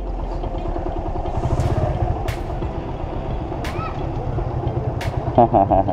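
A small motorcycle's single-cylinder engine idling with an even, pulsing low rumble. A few sharp clicks sound over it, and there is a short burst of a voice near the end.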